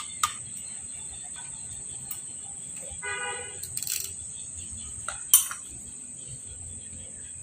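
A steady high-pitched insect drone, with two sharp knocks, the louder one about five seconds in, and a short pitched sound about three seconds in.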